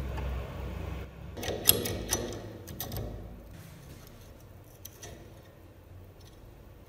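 Small metal parts clicking and tapping together, sharpest in a cluster a second or two in, with a few faint clicks later. A low hum underneath dies away over the first few seconds.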